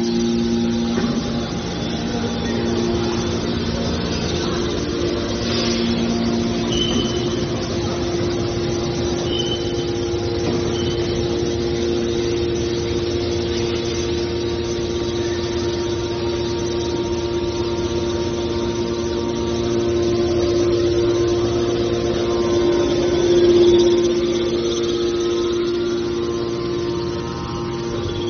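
Hydraulic scrap metal baler's power unit running with a steady hum, a few brief high squeaks early on, and a short swell in loudness near the end.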